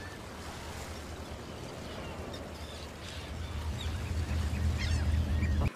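Faint outdoor seabird-colony ambience: scattered distant bird calls over a low steady rumble that grows louder toward the end, then cuts off suddenly.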